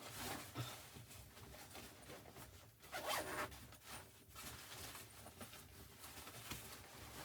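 Faint, irregular rasping and rustling handling sounds, loudest about three seconds in.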